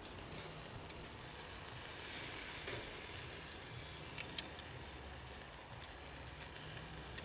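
Bratwursts sizzling on the grate of a small charcoal grill, a soft steady hiss with a few light clicks and crackles, some as metal tongs turn them.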